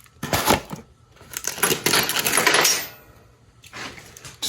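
Small metal objects clinking and rattling in a few short bouts, the longest lasting over a second.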